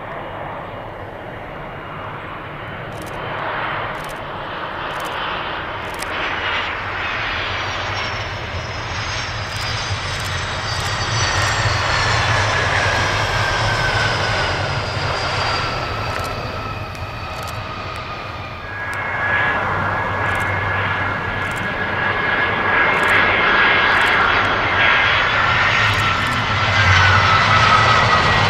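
Jet engines of a four-engined Avro RJ100 landing and rolling along the runway: a steady rumble with a high whine that slowly falls in pitch. About two-thirds of the way in comes the jet noise of an Airbus A320 on the runway, with a steadier whine, growing louder to the end.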